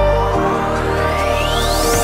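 Electronic dance music at a build-up: the kick drum drops out and a rising synth sweep climbs steadily toward the drop.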